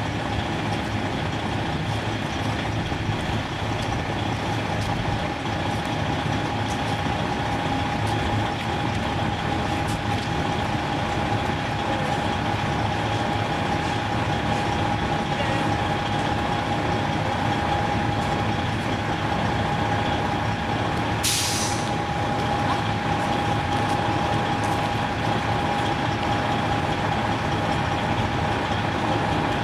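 Freightliner truck's diesel engine idling steadily with a constant high whine over its low hum. About two-thirds of the way through, a short burst of compressed-air hiss.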